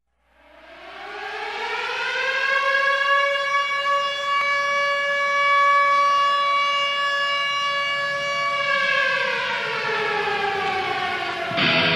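Air-raid siren wailing: it winds up over the first two seconds, holds one steady tone, then winds down over the last few seconds. Just before the end, an electric guitar comes in on the soundtrack.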